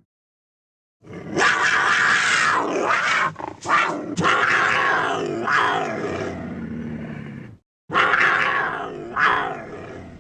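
Loud, rough animal roars and growls: a long run of calls with short breaks starts about a second in, then stops, and after a brief pause a second roar swells twice near the end.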